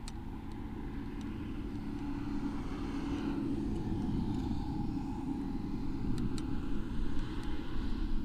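A vehicle's engine drone, growing steadily louder, with a faint rise and fall in pitch a few seconds in.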